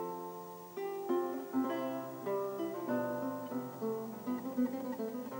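Background music played on a plucked string instrument, picked notes and chords that each ring and die away.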